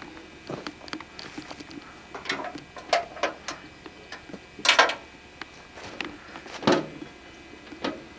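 Irregular knocks, clicks and clatter of things being handled, the two loudest knocks about halfway through and about two-thirds of the way through.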